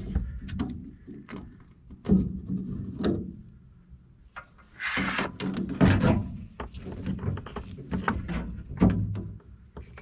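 Irregular knocks and clatter of rummaging through drawers and cupboards, with a stretch of rustling about five seconds in, over a faint steady low hum.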